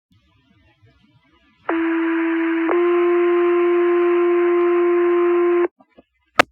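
Two-tone sequential fire-pager alert sent over the dispatch radio: a tone of about one second, then a second tone of about three seconds at a slightly different pitch, the signal that sets off the volunteer firefighters' pagers. A sharp radio click comes near the end.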